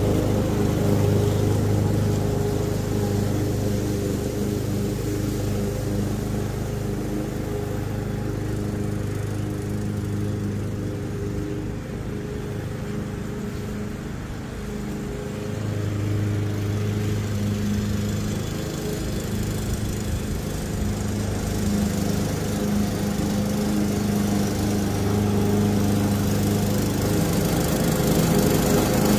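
Craftsman walk-behind gas lawn mower running steadily while cutting grass. The engine sound fades as the mower moves away, is quietest a little before halfway, then grows louder again as it comes back.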